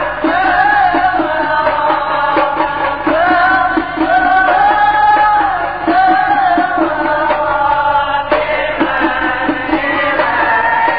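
A single voice chanting an Islamic prayer (doa) with music, in a Middle Eastern style, holding long notes and bending them in ornamented turns.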